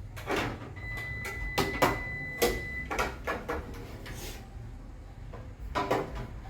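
Plastic fridge shelves and parts knocking and clicking as they are fitted back into the refrigerator: a string of sharp knocks through the first half, and another cluster near the end. A faint steady high tone sounds for about two seconds early on.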